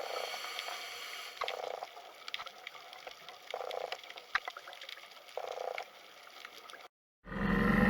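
Water running and splashing, with scattered clicks and a short, louder sound about every two seconds. It cuts off abruptly near the end.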